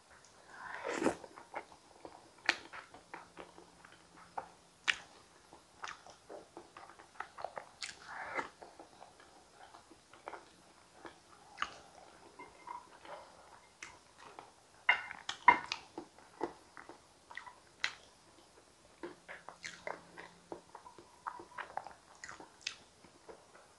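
Close-miked eating sounds: irregular wet mouth clicks and smacks while chewing and swallowing a thick sweet potato soup with soft avocado, with a few louder bursts now and then.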